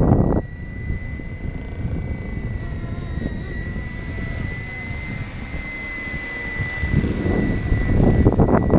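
A radio-controlled 470-size BO 105 scale helicopter flying, giving a steady high whine that wavers slightly in pitch. Wind gusts buffet the microphone at the start and again from about seven seconds in.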